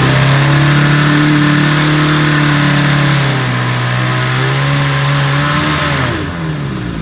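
1955 Evinrude Fastwin 15 hp two-cylinder two-stroke outboard opened up and held at speed, with a slight dip in revs midway, then throttled back about six seconds in. It does not wind up all the way because it carries a prop from an 18 or 20 hp motor.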